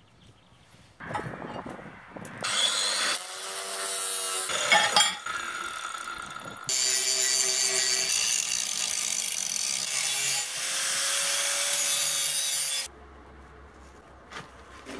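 Angle grinder cutting steel plate, first in several short bursts, then in one steady cut of about six seconds that stops suddenly near the end.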